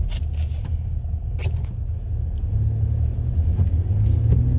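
Steady low road rumble heard from inside a moving car on a rain-wet road, growing a little stronger in the second half, with a few faint brief ticks.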